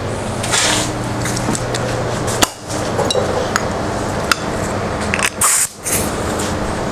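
Steady noise from a shop fan and air conditioner, with a few sharp clinks of metal tools being handled and two short hisses.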